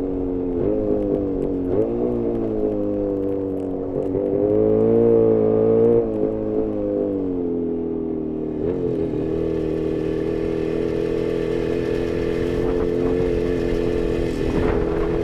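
Jawa 350 two-stroke twin motorcycle engine heard onboard, its note rising and falling with the throttle, climbing highest about five seconds in, then holding steadier from about nine seconds on. The engine is running very lean, which the owner says can be heard.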